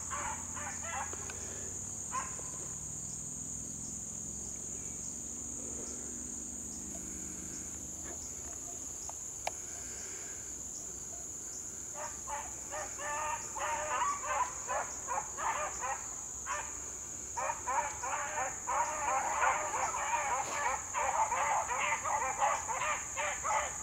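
Beagles baying in the brush: a quick run of short, repeated, wavering cries that starts about halfway through and keeps up almost to the end. A steady high insect trill runs underneath.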